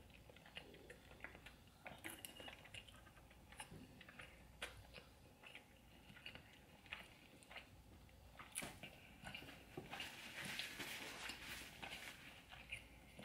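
Faint close-up sounds of someone chewing a seafood boil: wet mouth noises and lip smacks with scattered small clicks, growing denser about ten seconds in.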